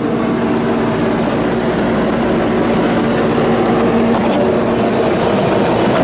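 Skid steer loader's engine running steadily, a continuous low hum with a few held tones.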